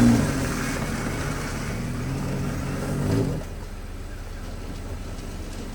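An engine running with a steady pitch, louder at the start, then dropping away about three seconds in and leaving a steady rushing noise.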